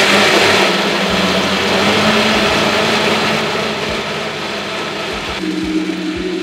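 Countertop blender motor running steadily at speed, whirring through boiled potatoes, butter and salted egg yolks to blend them into a mash.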